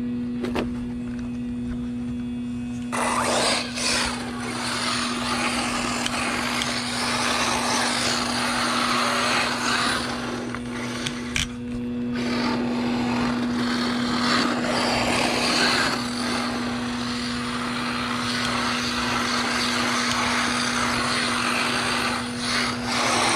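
1/8-scale RC buggy with a 1900 kV brushless motor driven hard on loose sandy dirt: the motor's whine and the tyres scrabbling and spraying dirt, rising and falling with the throttle, starting about three seconds in. A steady low hum runs underneath throughout.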